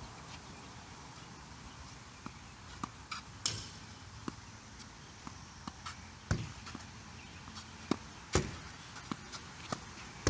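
Irregular sharp knocks and taps over a steady background hiss. The loudest come about three and a half, six and eight seconds in, and faint high chirps sound now and then.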